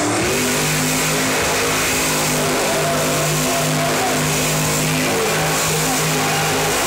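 Monster truck's supercharged V8 engine running at fairly steady revs, its note dipping and picking up again a few times, over loud arena noise.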